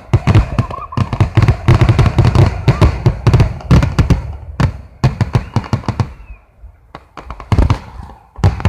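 Fireworks going off: rapid volleys of sharp bangs and crackling. The bangs thin out about two-thirds of the way through, then pick up again near the end.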